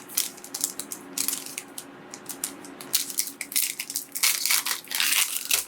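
Foil trading-card booster pack being crinkled and torn open by hand. Irregular runs of crackles, busiest in the second half.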